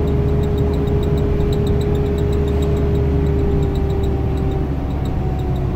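Steady road and engine noise inside a moving vehicle's cabin, a low rumble with a steady hum on top that stops about four and a half seconds in.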